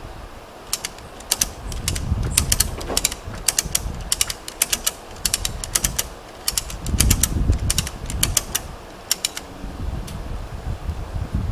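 Ratchet strap being cranked tight: runs of quick clicks from the ratchet handle, stroke after stroke. Wind rumbles on the microphone and gusts louder about seven seconds in.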